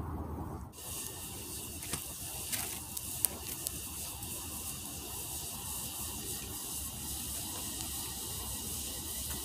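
Steady high hiss of woodland outdoor ambience, with a few light crunching steps on dry leaves and wood chips about two to four seconds in.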